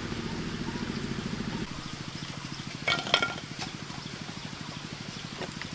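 A steady low hum throughout. About three seconds in, a short burst of sharp crackles and snaps comes from a small wood cooking fire as sticks are pushed into it.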